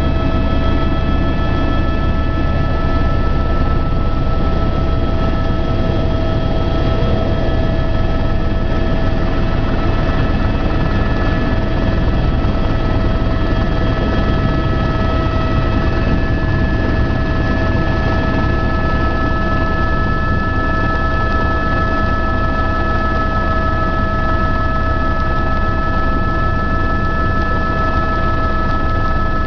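Aircraft cabin noise: a loud, steady engine drone with several high steady whining tones over it, unchanging throughout.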